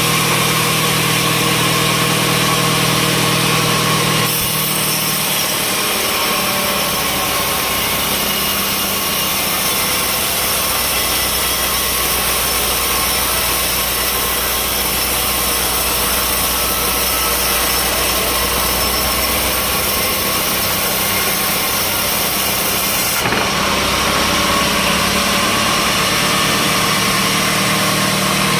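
Sawmill machinery running with a steady, loud, engine-like drone. Its tone changes abruptly about four seconds in and again near the end.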